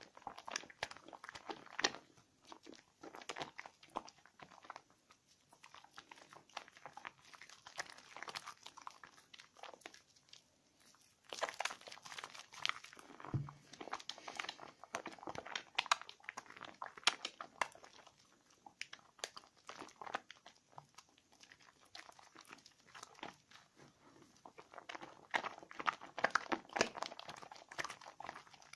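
Bar of 72% laundry soap being lathered by hand: a steady patter of irregular sticky crackles and squelches, growing denser about eleven seconds in and again near the end.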